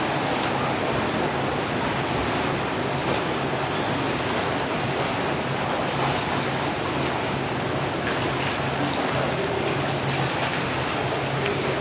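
Steady rushing noise of an indoor swimming pool, water moving and sloshing against the pool edge, with a few faint splashes.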